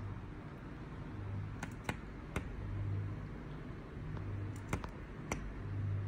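A small yellow songbird tapping its beak against a window pane: a few sharp clicks, one group about two seconds in and another near the end, over a low hum that swells and fades.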